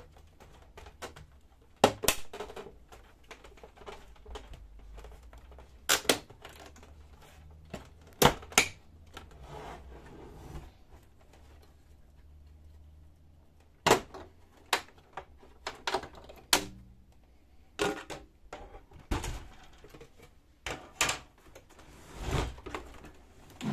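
Plastic side covers of a Samsung Xpress laser printer being unclipped and pulled off. The description is a string of sharp plastic clicks and snaps as the clips release, mixed with knocks of the panels and printer body being handled, about a dozen separate strikes.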